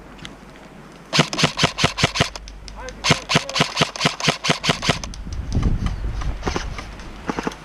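Airsoft rifle firing two full-auto bursts of about eight shots a second, the first about a second in and the second about three seconds in, each lasting a second or two.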